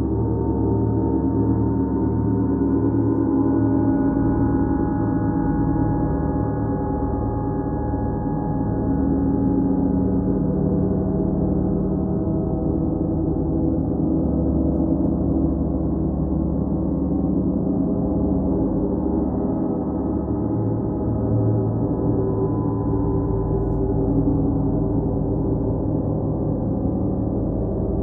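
Large suspended gongs played with a soft mallet: a continuous wash of many sustained, overlapping tones that swells and ebbs gently, with no separate strikes standing out.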